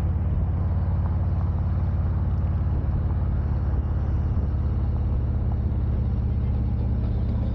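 Motorcycle engine running at a steady pace on the road, with wind and road noise over it.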